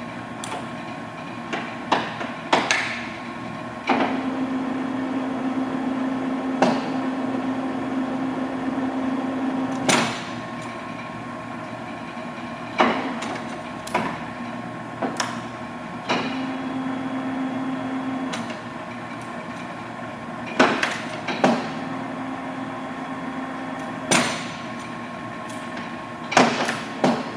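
A 1942 Monarch 16CY engine lathe's gearing running through its ranges, its steady hum starting and stopping in several stretches, with sharp metallic clunks every few seconds from shift levers and gears engaging.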